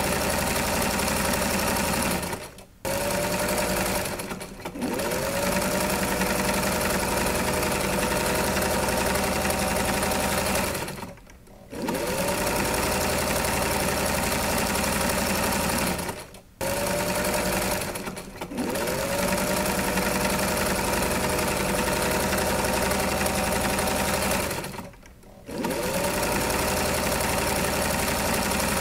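Electric sewing machine running in long stretches, stopping briefly about six times and starting up again each time.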